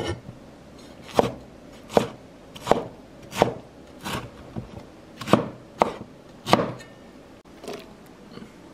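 Kitchen knife chopping tomatoes on a wooden cutting board: about ten sharp, evenly paced strokes, roughly one every two-thirds of a second, with a last weaker stroke near the end.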